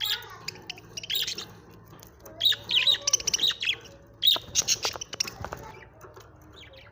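Pet budgerigars chirping in quick bursts of rapid, high chirps with short pauses between, fading to fainter chirps in the last second or two.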